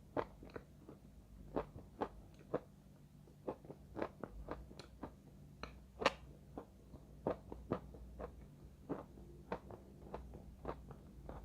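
Chalk with clay paste being bitten and chewed: a run of short, sharp crunches, irregularly spaced at about two a second.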